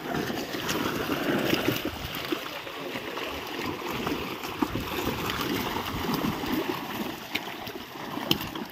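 Water splashing and churning as many fish thrash and leap inside a fishing net drawn in close, with a few sharper splashes among the steady spatter.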